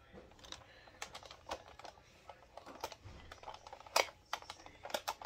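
Irregular light clicks and taps of a Nerf dart blaster being worked to clear jammed darts. The loudest click comes about four seconds in, with a quick cluster near the end.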